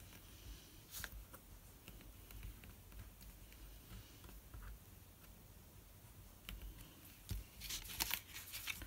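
Fingers pressing and rubbing small pieces of paper card, with faint scattered clicks and light scratching, then louder rustling of card stock near the end as a paper panel is picked up and moved.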